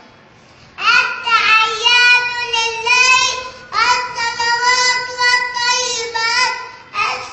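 A small boy's high voice chanting in long, drawn-out melodic phrases, three of them, starting about a second in after a short pause.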